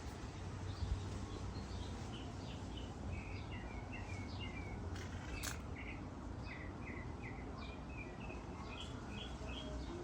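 Small birds chirping, many short repeated high notes throughout, over a steady low hum.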